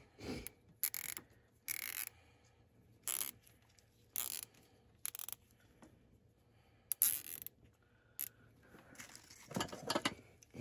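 Coiled bundle of car-audio amp wiring being handled and bound up by hand: about eight short scratchy rasps, the longest cluster near the end.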